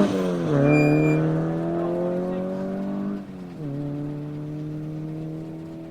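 Rally car accelerating away from the start. The engine's pitch climbs in each gear and drops sharply at two upshifts, just after the start and about three seconds in, and the car fades as it pulls away.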